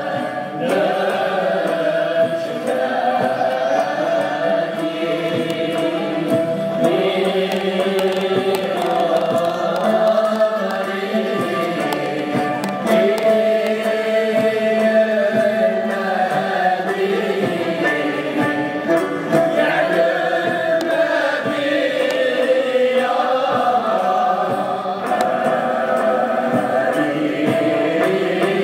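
Choir and string ensemble performing: many voices singing together, accompanied by ouds, mandolins, guitars and violins.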